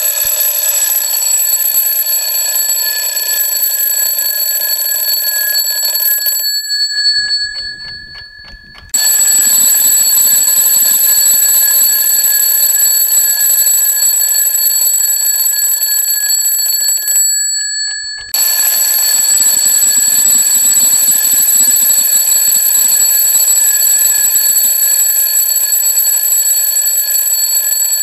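Twin-bell mechanical alarm clock ringing loudly and steadily. The ringing breaks off about six seconds in for roughly two seconds, and again for about a second near seventeen seconds, then starts again.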